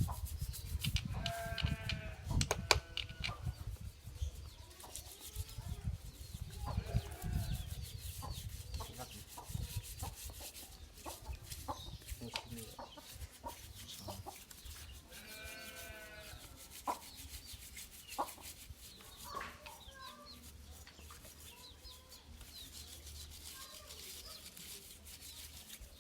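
Farm animals calling now and then: a few short pitched calls, mixed with scattered clicks and taps, and low rubbing noise in the first part.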